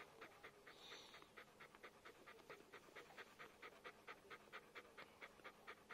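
Nursing mother dog panting rapidly and faintly, about six breaths a second, in an even rhythm.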